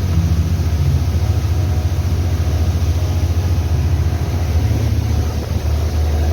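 Regal Commodore motor cruiser's engine running steadily under way, a constant low rumble with a haze of water and wind noise above it.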